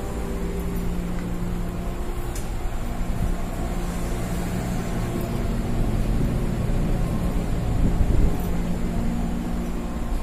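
Steady hum and rumble inside an electric commuter train carriage, with a few steady machine tones and a louder swell about eight seconds in.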